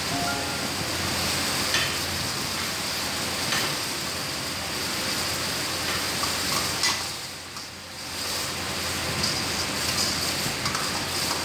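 A steel ladle stirring thick chicken gravy in a steel kadai over a gas flame, the gravy sizzling steadily, with a few sharp clinks of the ladle against the pan. It goes briefly quieter about two-thirds of the way through.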